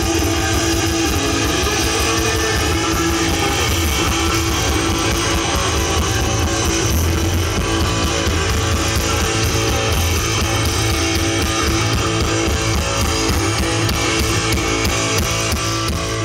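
Rock music led by electric guitar, playing steadily.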